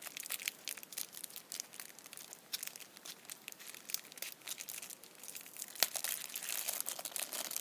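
Packaging crinkling and rustling in quick, irregular crackles as a lock is unwrapped by hand.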